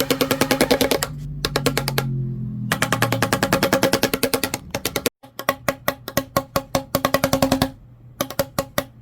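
Electric fan's spinning blades striking a cardboard tube in a fast rattling stream of about ten hits a second, over the fan motor's steady hum. The hitting stops for a moment about a second in and again near the end, leaving the hum.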